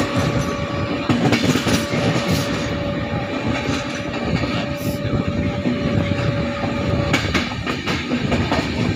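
Express passenger train running through a station without stopping, heard from on board: a steady rush and rumble of wheels on rail, with a few clacks over rail joints and points. A thin steady tone runs underneath and stops about seven seconds in.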